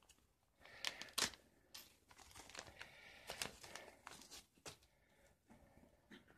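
Faint crinkling and rustling of a soft plastic coin flip as gloved hands open it and slide the coin out, with a couple of louder crackles about a second in.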